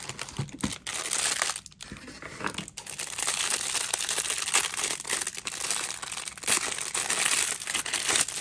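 Thin clear plastic bag crinkling continuously as hands work it open and pull a small plastic figure out of it, with brief gaps about two seconds in.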